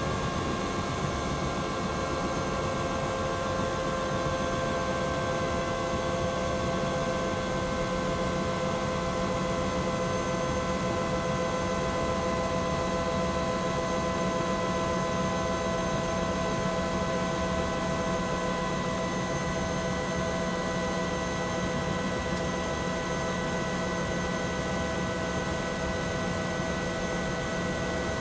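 Bell 212 twin-turbine helicopter heard from inside the cabin, running steadily: a constant low rotor and engine rumble under several turbine whine tones that sink slowly and slightly in pitch.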